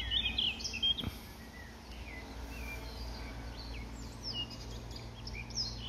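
Garden birds singing, many short chirps and whistled notes scattered throughout, over a low steady outdoor rumble.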